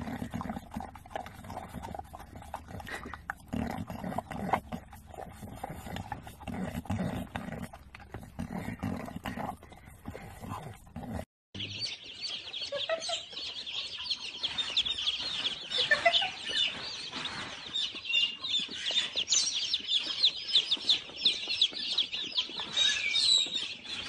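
Animal calls from two clips. For about the first eleven seconds there are low, indistinct noises. After a short break comes a dense run of rapid, high-pitched chirping and clucking, as from a flock of birds.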